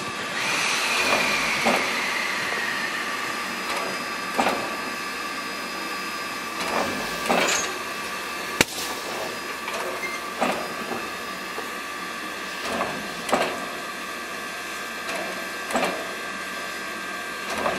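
Canadian National 0-6-0 steam locomotive No. 7470 standing at idle: a steady hiss of steam, broken every two or three seconds by a louder puff, with one sharp click about halfway through.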